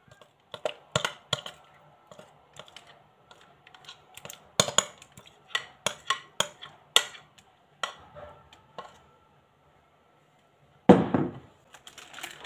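Spatula clicking and scraping against a glass mixing bowl as thick fudge mixture is scraped out into a parchment-lined pan: irregular sharp taps, with parchment paper rustling. A louder thump and rustle near the end.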